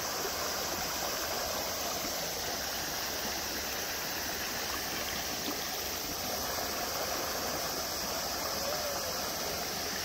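Mountain stream flowing steadily over boulders and cobbles: a constant, even wash of running water.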